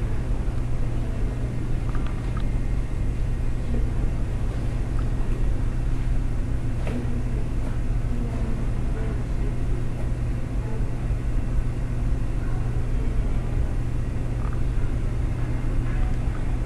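A steady low rumbling hum with a constant low tone, broken only by a few faint clicks, one of them sharper about seven seconds in.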